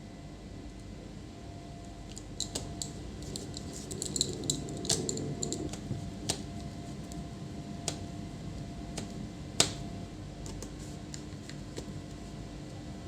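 Scattered light clicks and taps of a laptop being handled, irregular and a few per second at most, over a faint steady hum.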